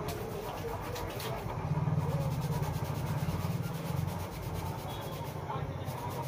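Fingers rubbing briskly through hair and over the scalp during a head massage, scratching in a fast, even rhythm of strokes in the middle, over a low steady hum.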